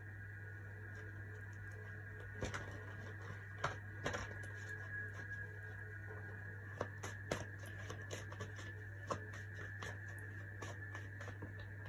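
Tarot cards being handled, giving scattered light clicks and taps over a steady electrical hum and faint high tone.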